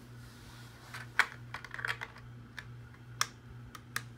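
Plastic LEGO bricks clicking and clattering as pieces are handled and pressed together: a run of sharp, irregular clicks, the loudest about a second in.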